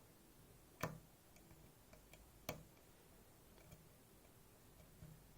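Lock-picking clicks from a Goal Z 7-pin cylinder as a pick works its pins: two short, sharp clicks, about a second in and at about two and a half seconds, with a few faint ticks between them.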